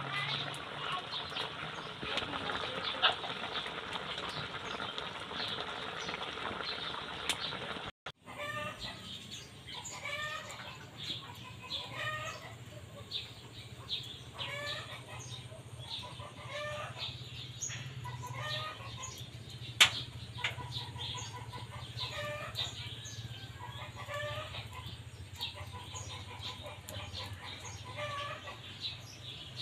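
Tilapia and vegetables sizzling in a wok for about the first eight seconds. After a cut, chickens cluck again and again over a low steady hum, with one sharp click about twenty seconds in.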